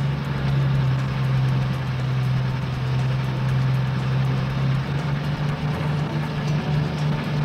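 Truck engine sound effect running with a steady low hum, settling into an evenly pulsing idle about five seconds in.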